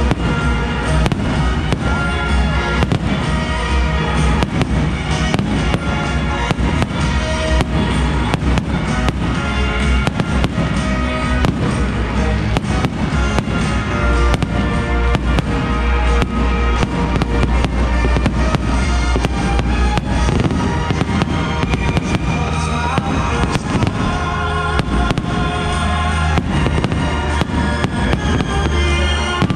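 Fireworks display: aerial shells bursting in a dense, continuous run of bangs, over music played with the show that has sustained notes.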